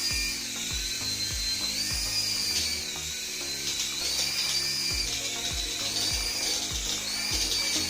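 Background music with a steady drum beat about twice a second, and a high whine that rises and falls over it.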